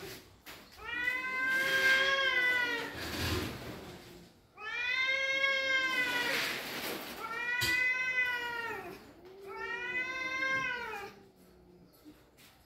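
Two cats caterwauling in an aggressive standoff: about four long, wavering yowls that rise and fall in pitch, dying away about a second before the end.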